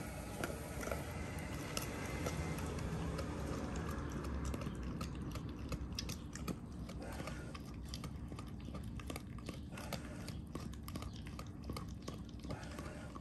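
A Doberman gnawing on a large bone: teeth scraping and cracking on the bone in frequent short, sharp crunches, which come thicker from about four seconds in.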